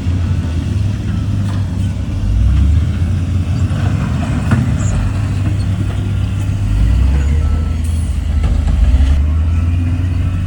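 Heavy diesel earthmoving machinery running: a loud, steady, deep engine rumble with a few faint knocks over it.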